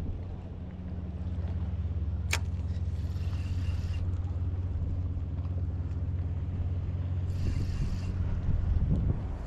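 A steady low engine drone, with a single sharp click a little over two seconds in.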